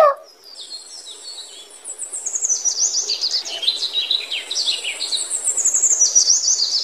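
Songbirds chirping: quick, high chirps falling in pitch in short repeated runs, faint at first and louder from about two seconds in, over a faint hiss.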